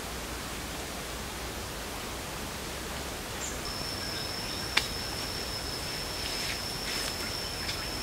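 Forest ambience with a steady hiss; about three and a half seconds in, an insect starts a steady high-pitched note that carries on. Just before the middle comes a single sharp knock, the loudest sound, then a few lighter clicks and rustles as wooden sticks are handled.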